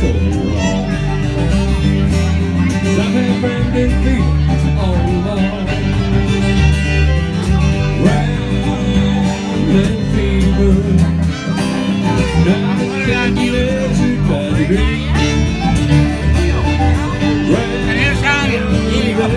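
Live country-bluegrass band playing an instrumental passage: acoustic guitar and fiddle over a keyboard, with deep bass notes stepping in a steady rhythm.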